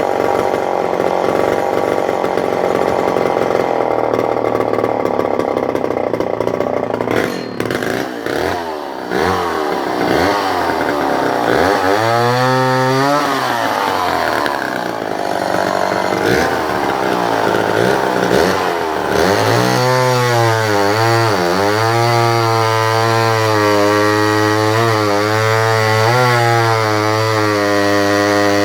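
Remington SL4 59cc two-stroke chainsaw running: steady at first, then revved up and down several times, and from about two-thirds of the way through held at high revs with small dips in pitch.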